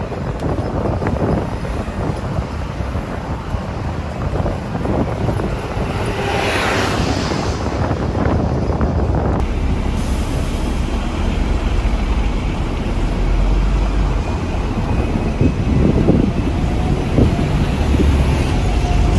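Steady low rumble of a moving vehicle. A rushing whoosh rises about six seconds in and dies away a few seconds later.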